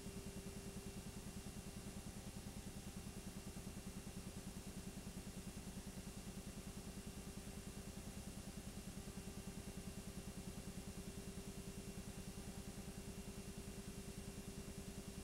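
Film projector running: a steady mechanical whir with a fast, even flutter and a constant hum.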